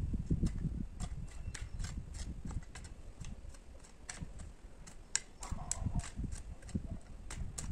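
Garden hoe chopping and scraping into dry soil: irregular knocks with sharp clicks, heavier thuds near the start and again a few seconds later.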